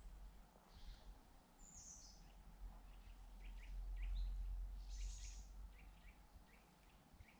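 Small birds chirping with repeated short, high calls. A low rumble swells and fades about halfway through.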